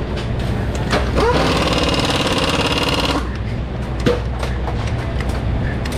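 A pneumatic air tool rattles rapidly for about two seconds, over a steady low drone of machinery, with a few sharp metal clicks of tools.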